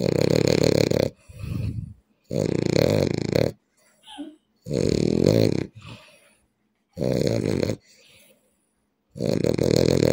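A person snoring loudly in a steady rhythm: five long snores about two seconds apart, each followed by a shorter, quieter one.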